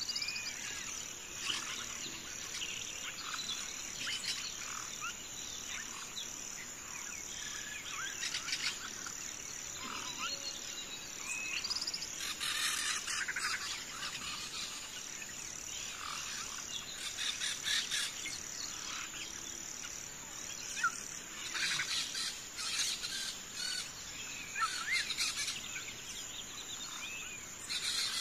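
Small birds chirping and twittering over a steady, high-pitched insect drone like crickets. The chirps come in short runs that grow busier about halfway through and again near the end.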